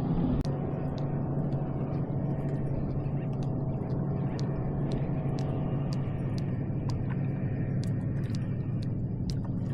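A steady low motor hum with a constant pitch, with faint light ticks scattered through it.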